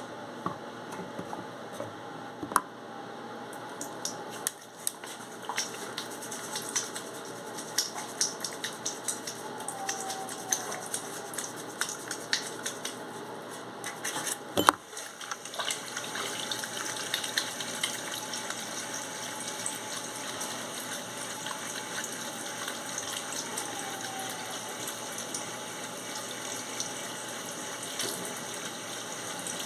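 Bathroom tap running into a sink while hands are washed with soap, with small splashes and clicks throughout and a sharp knock about halfway through.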